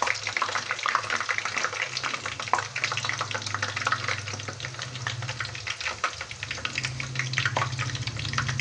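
Chicken samosas and spring rolls deep-frying in hot oil in a pan: a dense, steady crackle and sizzle of bubbling oil as the pieces are moved and turned with metal tongs. A low steady hum runs underneath.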